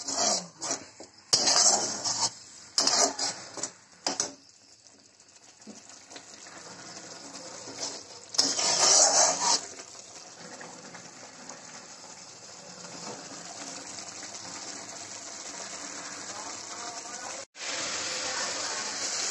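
A metal spatula scrapes and clinks against a steel kadai while stirring an onion-garlic paste frying in oil. Then comes a steady sizzle, which grows louder near the end.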